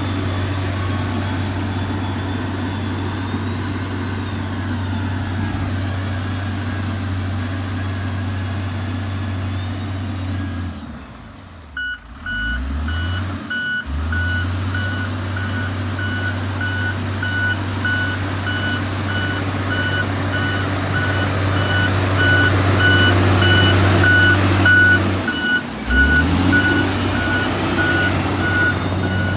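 Motor grader's diesel engine running steadily. About eleven seconds in, the engine drops away and picks back up, then the reversing alarm starts beeping steadily as the machine backs up. Near the end the engine dips briefly again and recovers.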